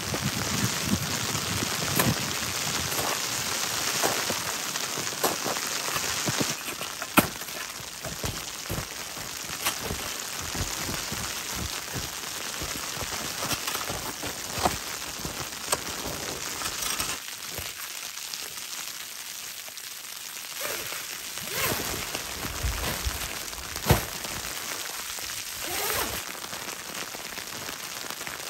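A small snow shovel scoops and scrapes packed snow, with boots crunching in snow: a crunchy hiss broken by scattered sharp knocks and scrapes.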